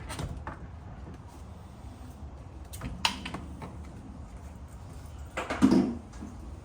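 Scattered light clicks and knocks of small parts being handled, with a louder clatter about five and a half seconds in.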